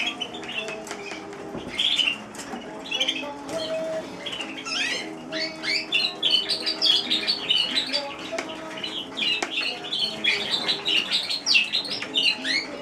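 Domestic canary singing: quick chirps and trills, scattered at first, then running in a dense, nearly unbroken song from about five seconds in. Steady low held tones sound underneath.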